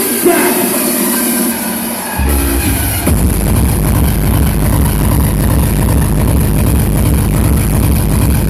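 Hardstyle dance music. A melodic passage gives way to heavy bass about two seconds in, and about three seconds in the track drops into a dense, pounding distorted kick and bass beat.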